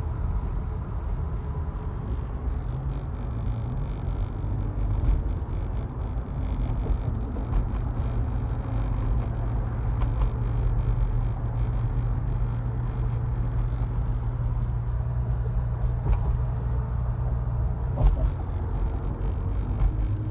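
2016 Toyota Tacoma driving off-road: a steady low drone with a few sharp knocks or clunks scattered through it, the loudest about eighteen seconds in. This is the strange noise the owner is trying to trace.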